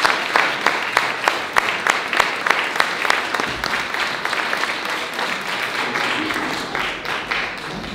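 A small audience applauding, the clapping thinning out and getting quieter over the last few seconds.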